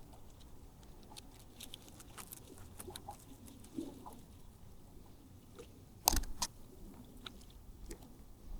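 Bank line being pulled out and handled, measured off by hand: faint rustling of the cord and small scattered clicks, with a couple of sharper clicks about six seconds in.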